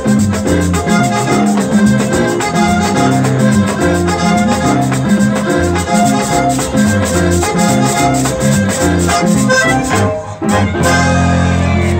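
Lively Panamanian cumbia music with a steady, even percussion beat and a shaker. About ten seconds in it drops out briefly, then different music begins.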